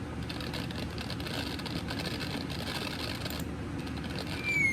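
TNT Allegiance consumer firework fountain burning with a steady hiss. Near the end a whistle starts, sliding slightly down in pitch.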